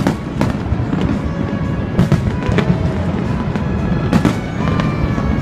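Aerial fireworks bursting: sharp bangs every second or so, with crackling over a continuous low rumble of explosions. Music plays underneath.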